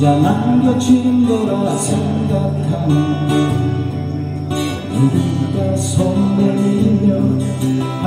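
Two acoustic guitars played live through a PA, strummed and picked together, with a man's voice singing into a microphone at times.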